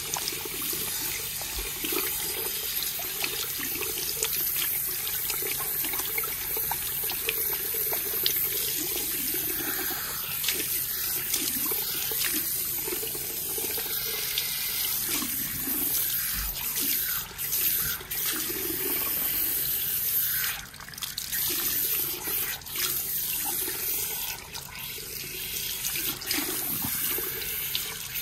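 Water running from a salon shampoo-bowl hand sprayer through wet hair and splashing into the basin, as hands rinse and squeeze the hair. The steady spray dips briefly a few times in the second half.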